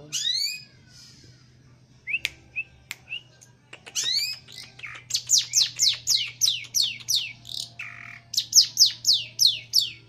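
Long-tailed shrike singing: a falling call at the start and a few short whistles, then from about four seconds in a rapid run of sharp notes, each sweeping down in pitch, about three a second.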